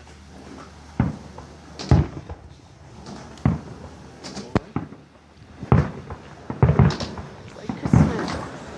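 Fireworks going off: about seven sharp bangs at irregular intervals, each trailing off briefly.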